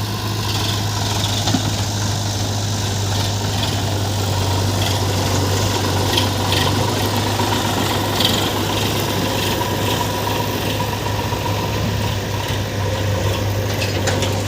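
Heavy diesel engine of a backhoe loader or tractor idling steadily, with a couple of small knocks about a second and a half in and about eight seconds in.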